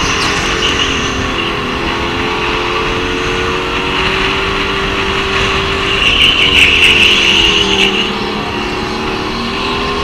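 Racing go-kart's motor running hard through a lap of corners, its pitch rising and falling as the driver lifts and gets back on the power. It grows louder and brighter for a couple of seconds about six seconds in.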